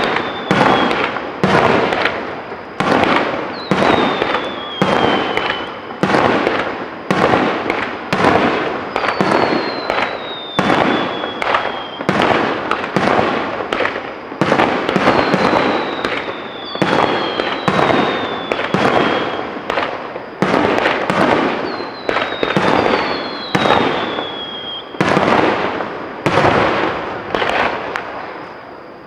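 Aerial fireworks shells bursting in rapid succession, a dense run of booms with echoing tails, with several falling whistles over them. The barrage thins out near the end.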